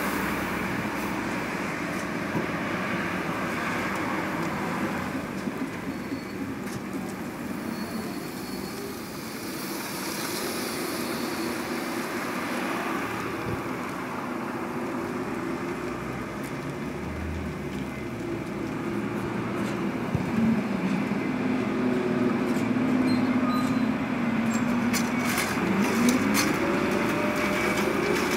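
Škoda 21Tr trolleybuses driving slowly past, their electric drive humming over a steady rumble of tyres and traffic. Near the end the hum steadies into a tone that then rises in pitch as one pulls away, with a few sharp clicks.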